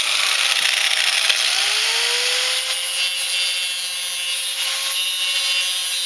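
Ryobi angle grinder cutting a metal nub off the end of a pneumatic screen-door closer's cylinder: a harsh, steady grinding hiss over the motor's whine. The whine dips in pitch about a second and a half in as the disc bites, then recovers and holds.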